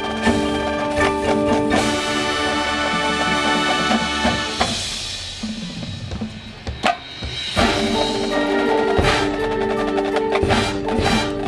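High school marching band playing, with brass and woodwinds holding chords over drums. A few seconds in, the winds drop out and only the drums and other percussion play. About three seconds later the full band comes back in.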